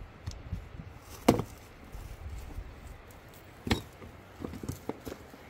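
Stones knocking against stones as rocks are set down into a line: two sharp knocks, about a second in and near four seconds in, then a few lighter clacks.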